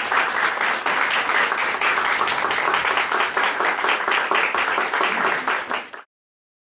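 A small group clapping, a steady round of applause that cuts off suddenly near the end.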